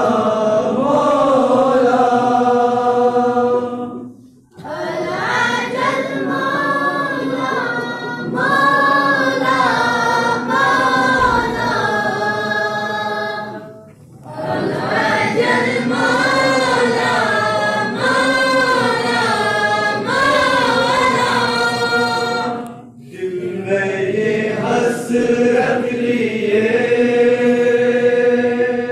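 A group of young men singing a devotional tarana together into a microphone. The sung lines are loud and sustained, with three brief breaks between phrases.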